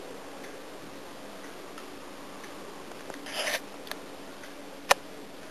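Handling noise of a small glass nail polish bottle being turned in the hand: a short rustle of packaging about three seconds in, then a single sharp click near the end.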